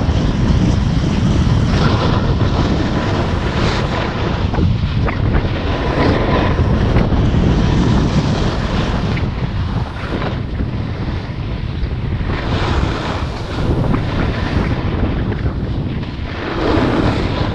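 Wind rushing over an action camera's microphone on a moving snowboard run, mixed with the snowboard scraping over packed snow.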